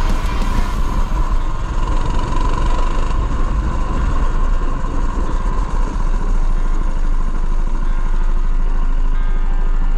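Go-kart's small petrol engine running close under the driver, with wind and road noise. The sound is uneven at first and evens out into a steadier drone about six seconds in.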